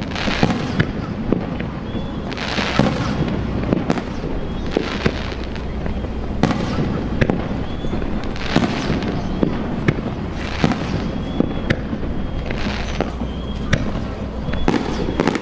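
Fireworks display: a steady run of sharp bangs from shells bursting, with a hissing, crackling swell about every two seconds.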